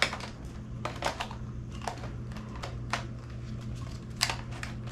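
Irregular small plastic clicks and taps from a camcorder being handled, over a steady low hum.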